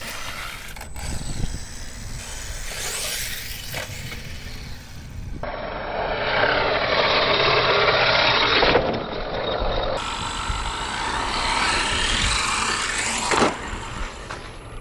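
Hosim X25 brushless 1/8-scale RC truck driving, a rough scrabbling noise of its tyres and drivetrain over the ground. It gets louder about five seconds in and changes abruptly twice, as short clips cut together.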